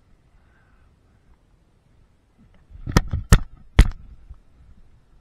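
Three sharp knocks in quick succession about three seconds in, close to the microphone: handling noise from a hand bumping the camera.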